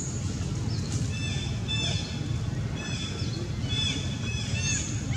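Short, high-pitched animal calls repeated about once a second, each dipping in pitch at its end, starting about a second in, over a steady low rumble of outdoor noise.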